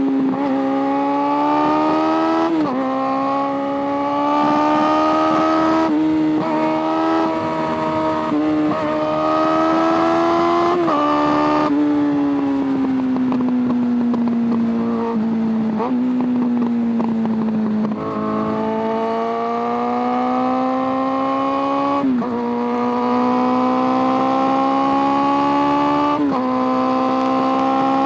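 Suzuki Bandit 600's carbureted inline-four engine, heard from onboard, pulling through turns. Revs climb in stages with brief dips, fall away as the throttle is closed about halfway through, then build again with two more short dips near the end.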